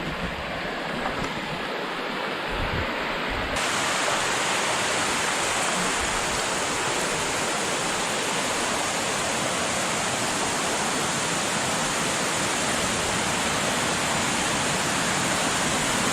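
Rushing water of a river waterfall, a steady hiss that turns abruptly fuller and brighter about three and a half seconds in.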